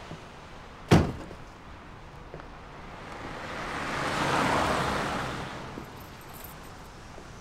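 An SUV's door slammed shut about a second in, the loudest sound. Then a passing car's rush swells up and fades away over about three seconds.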